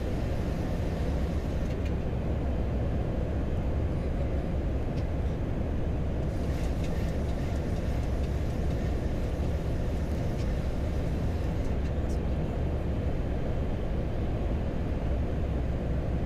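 Steady cockpit noise inside a Boeing 737-800 flight deck on final approach with flaps at 40: an even rush of airflow and engine noise, heaviest in the low end.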